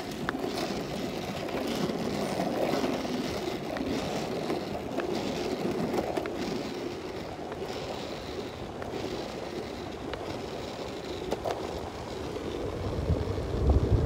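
Longboard wheels rolling steadily over an asphalt path: a continuous gritty rumble with a few faint clicks. A heavier low buffeting comes in near the end.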